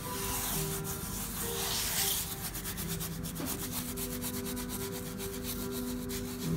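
Fingertips rubbing mineral pigment into scored paper: dry swishing strokes, turning into a quick run of short, scratchy strokes from about two seconds in.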